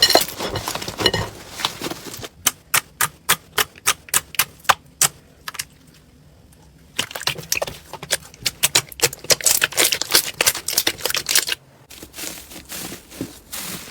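Slime being pressed and poked by hand, making crisp clicking pops. First comes a run of separate clicks, about five a second, then a short pause, then a denser stretch of crackling clicks.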